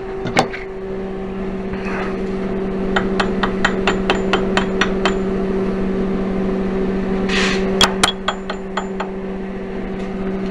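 Arc welder humming steadily, with two runs of sharp, ringing metallic clicks, about four or five a second, and a short hiss about seven seconds in.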